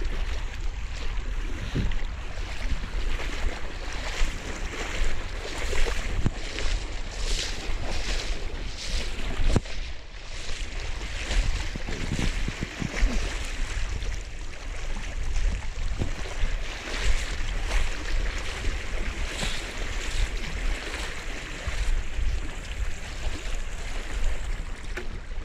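Floodwater churning and splashing around motorbike wheels pushing through deep water, with wind buffeting the microphone.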